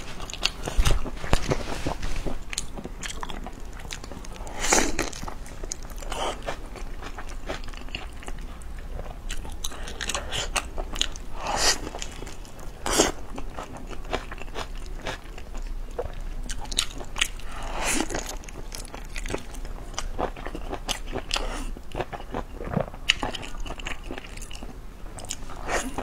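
Close-miked biting and chewing of a large blanched salted-kelp rice wrap: a steady run of small mouth clicks and crackles, broken by a few louder crunching bites spread through.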